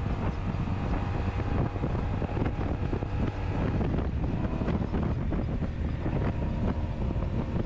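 Wind buffeting the microphone on a riding 1983 Honda Sabre motorcycle, with the bike's V4 engine running steadily underneath the wind roar.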